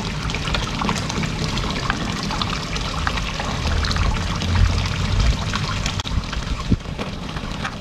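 Steady trickling and splashing of running water, with a few light clicks from a screwdriver working the screw on the aerator's plastic filter cover.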